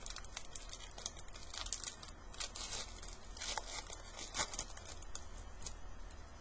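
Hockey trading cards being handled and flipped through: a run of light card flicks, clicks and paper rustles.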